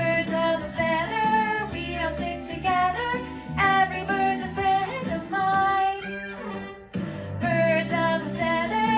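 Children's song: a melody sung without clear words over guitar-like accompaniment. A short falling glide leads into a brief break about seven seconds in, and then the tune picks up again.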